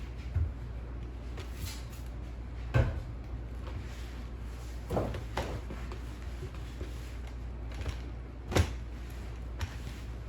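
A few scattered knocks and bumps of things being handled during housework, the loudest about three seconds in and near the end, over a steady low hum.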